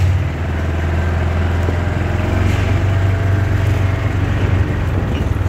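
A small vehicle driving along a gravel path: a steady low motor hum with an even rumble from the tyres over the stones.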